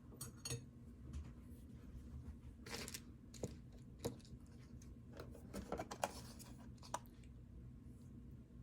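A string of small clicks, clinks and scrapes of hard objects being handled, with a short scratchy rustle just after the start and a longer one about three seconds in.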